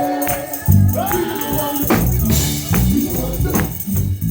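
Live gospel music: a band playing a steady beat with bass and drums under a held, wavering sung note.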